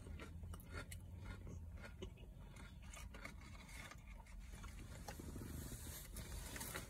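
Faint scraping and small clicks of a plastic fork against a plastic takeout tray of tater tots, with quiet chewing.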